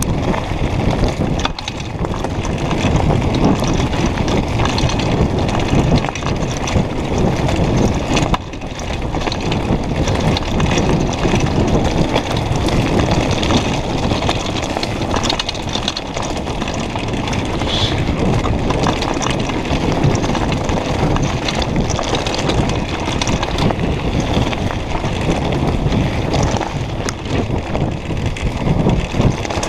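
Mountain bike rolling fast down a rocky gravel trail: a continuous loud rattle and crunch of the tyres on loose stones, with the bike clattering over the bumps.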